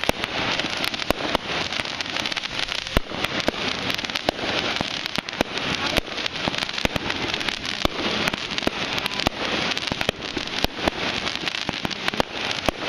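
Fireworks going off: dense, continuous crackling with many sharp bangs and pops at irregular intervals.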